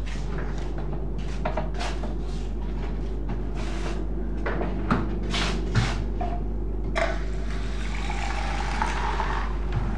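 Kitchen handling noises over a steady low hum: light knocks and clicks of things being set on a counter and cupboards moved, the sharpest about five and six seconds in. About seven seconds in, a steady rushing, hissing sound comes from a plastic bottle for about two and a half seconds.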